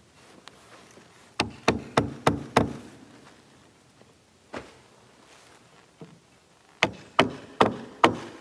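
Hammer blows on the wooden roof deck: a quick run of five strikes about a third of a second apart, a single strike a couple of seconds later, then another run of five near the end.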